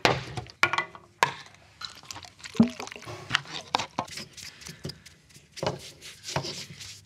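Metal cans set down on a wooden workbench, then a brush dabbing and rubbing as shellac is brushed onto a wooden cut-out: a run of irregular taps and clicks with soft brushing in between.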